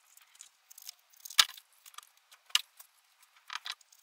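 Cardboard template being folded and creased by hand around short steel pipe pieces: a few sharp crinkles and light knocks of the pipe, the loudest about a second and a half in.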